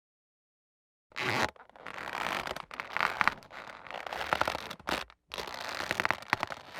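Squeak sound effect: a run of scratchy, creaking squeaks made of quick repeated strokes, starting about a second in, with a short break a little after the middle.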